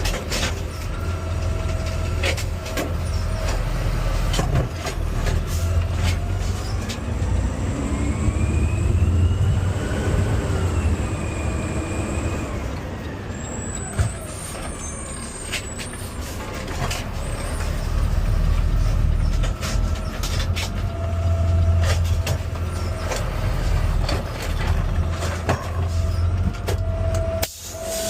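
Automated side-loader garbage truck running through a cart pickup: a steady low engine rumble, with the engine's pitch rising and falling once around the middle as the hydraulic arm lifts and dumps the cart. Short knocks and clunks come from the arm and cart throughout.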